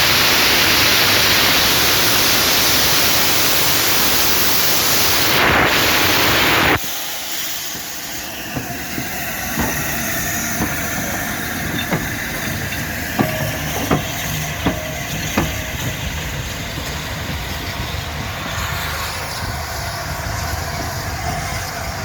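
LNER A4 Pacific steam locomotive Sir Nigel Gresley blowing off steam with a loud, steady hiss that cuts off suddenly about seven seconds in. A quieter rumble follows, with a run of sharp metallic clanks.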